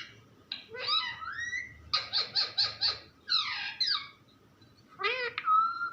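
A pet parrot giving a string of high, squeaky, gliding calls and chattering phrases in four bursts, including a quick run of about five even notes around two seconds in.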